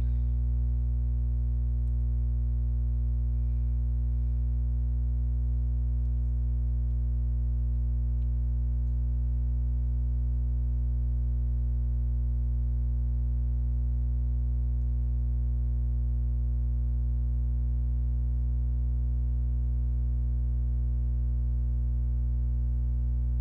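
Steady low hum with a faint buzz of overtones above it.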